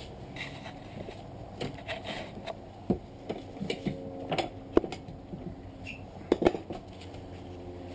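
Scattered sharp metal knocks and clinks of tools and steel parts being handled at a bench vise, with the strongest about halfway through and again near the end.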